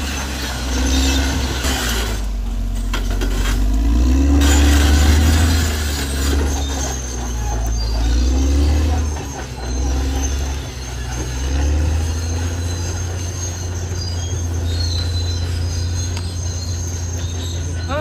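Caterpillar D6R XL crawler bulldozer working: its diesel engine runs under changing load, the engine note rising and falling several times, over the clatter and squeal of its steel tracks.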